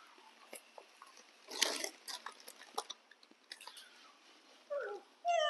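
Young macaques crunching crispy snack crackers and crinkling their plastic snack wrappers, in scattered crackles with one denser burst about one and a half seconds in. A short voice with falling pitch is heard near the end.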